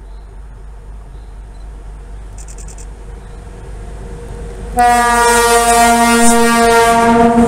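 M62 diesel locomotive running light, its two-stroke V12 diesel growing louder as it approaches. About five seconds in it sounds its horn: one long, loud, steady note.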